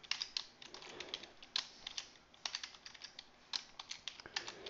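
Computer keyboard being typed on: irregular key clicks in short runs with brief pauses between them.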